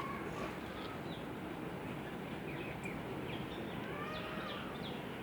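Steady background noise with a few short bird chirps and calls, most of them in the second half.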